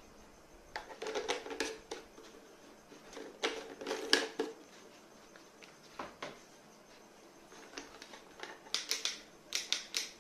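Plastic clicks and rattles from a Buildskill BPS2100 Pro HVLP paint sprayer being turned over and handled. There are bunches of quick clicks about a second in and around four seconds, a single click near six seconds, and a fast run of clicks near the end.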